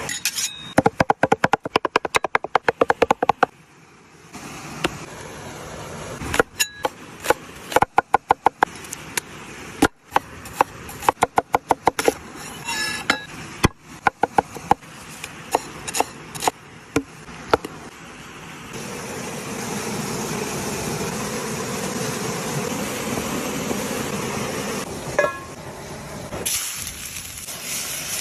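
Knife work on a wooden cutting board: runs of rapid chopping strokes from a cleaver, with a blade drawn against another knife at the start. About two-thirds through this gives way to a steady sizzle of frying in a cast-iron pan over a wood fire.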